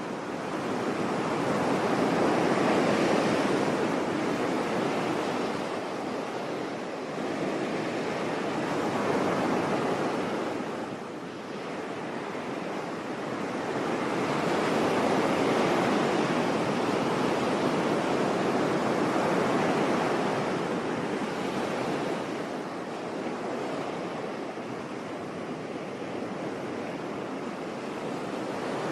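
Sea waves breaking and washing on a shore, a steady rush that swells and recedes every few seconds.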